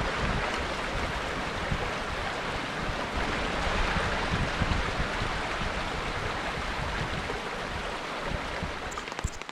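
Steady rushing of water with a fluttering low rumble. Near the end, a sharp patter of raindrops begins.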